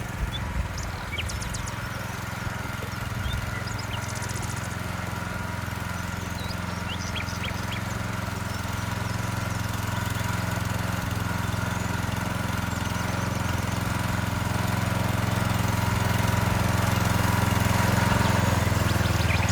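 Small petrol engine of a walk-behind rototiller running steadily, growing gradually louder toward the end.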